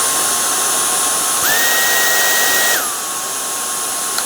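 Dyson V10 Absolute cordless stick vacuum's motor running with a high whine, cycling through its three power settings. About a second and a half in it steps up to the highest setting, and the pitch and the rush of air jump sharply. Just under three seconds in it steps back down to the middle setting.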